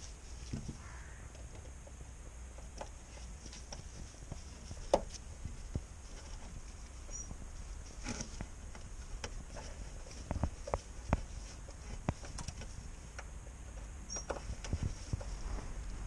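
Scattered light clicks, taps and scrapes of hand work on the aerial mounting bracket and its self-tapping screw inside a car's front wheel arch, with one sharper click about five seconds in.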